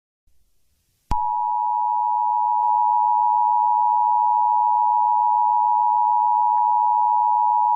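Electronic emergency-broadcast attention tone: one steady, unbroken pitch that starts abruptly about a second in, after near silence. It signals that an emergency announcement is about to follow.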